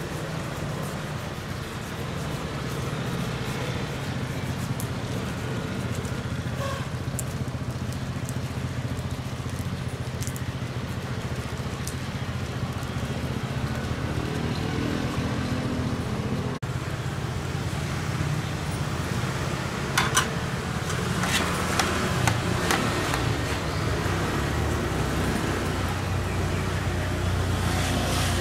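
Steady low rumble of street traffic, with a knife working through pineapple rind and flesh; a few sharp clicks come about two-thirds of the way through.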